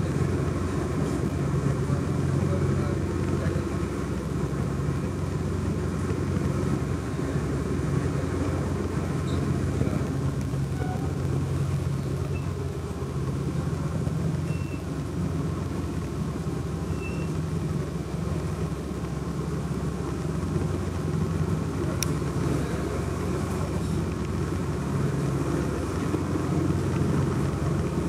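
Passenger ferry's engine running with a steady low drone, heard from inside the boat's covered passenger deck.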